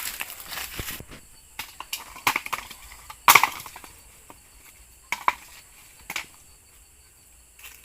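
Irregular crunching and crackling, a scatter of sharp cracks with the loudest a little over three seconds in.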